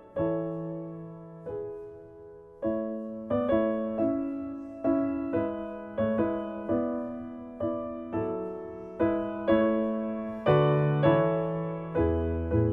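Background piano music: single notes and chords struck at a calm pace, each sounding sharply and then dying away.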